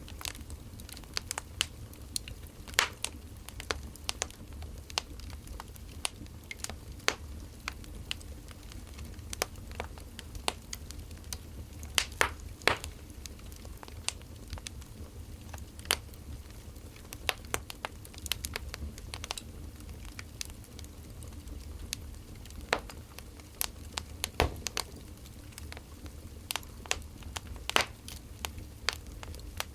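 Firewood burning: irregular sharp crackles and pops, a few louder snaps among them, over a low steady rumble.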